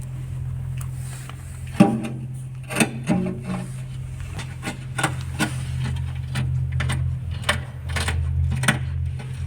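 Hand tools clinking and tapping on metal in irregular sharp strikes while a battery isolator switch is mounted back in place, over a steady low hum.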